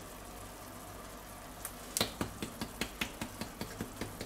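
Paprika shaker being shaken over meat in a steel bowl: a regular run of light clicks, about five a second, starting about two seconds in, over a faint steady hum.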